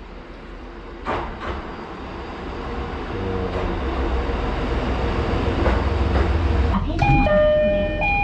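A diesel railcar pulling into a station, its rumble growing steadily louder as it approaches. About seven seconds in, an electronic door chime sounds in a few stepped tones as the doors open.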